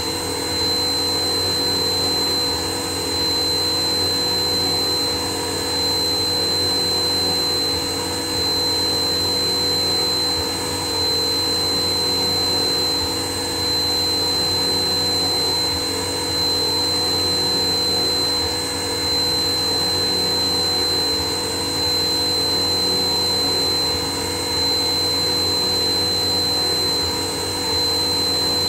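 CNC machine running: a steady mechanical drone with a high, constant whine, its level dipping briefly every two to three seconds.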